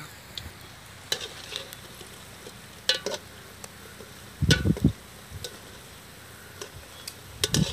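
Hot oil sizzling steadily as battered egg bondas deep-fry in a metal pan, with a wire spider skimmer scraping and clinking against the pan now and then. A louder knock comes about four and a half seconds in.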